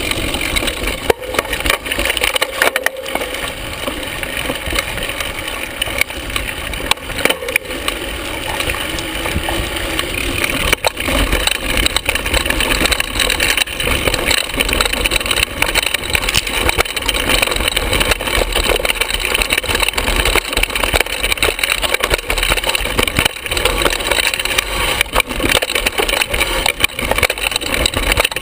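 Carbon hardtail mountain bike riding down bumpy dirt singletrack, heard close to the bottom bracket: a constant rumble of knobby tyres over dirt and rocks, broken by frequent sharp knocks and rattles as the bike hits bumps.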